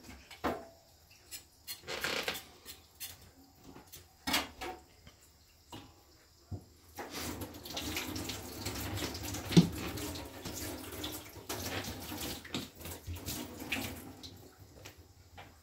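Kitchen tap water running into a sink for about eight seconds, starting about seven seconds in. Scattered light knocks and clatter come before it, and one sharp knock sounds in the middle of the running water.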